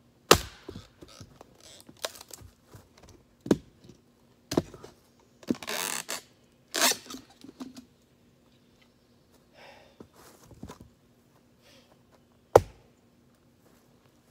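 Axe chopping into a log: a hard chop about a third of a second in, a few lighter knocks and a short splintering crackle in the middle as the wood comes apart, and another hard chop near the end.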